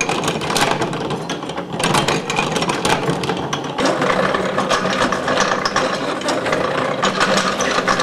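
Cast-iron gearing of antique hand-operated washing machines clattering as the machines are worked, a dense run of rattling gear-tooth clicks. The clatter changes about four seconds in, when a wooden-tub washer worked by a foot-pumped lever takes over.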